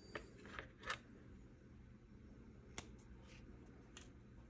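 Faint handling sounds of hands positioning a thin plastic rod on a paper template: three light taps within the first second, then single small ticks near 3 and 4 seconds, over a low room hum.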